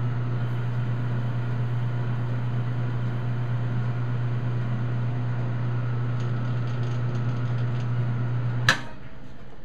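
Metal lathe running with a steady low motor hum during a facing pass on a piece of Delrin. Near the end a sharp click as the lathe is switched off, and the hum dies away.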